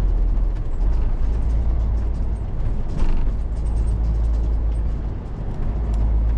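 Inside the cab of a moving MAN HGV: a steady deep engine and road rumble with small creaks and rattles from the cab, and a sharper knock about three seconds in. The rumble eases briefly around five seconds in and then picks back up.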